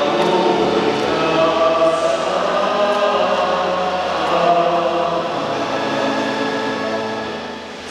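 A group of voices singing together in long held notes, fading near the end.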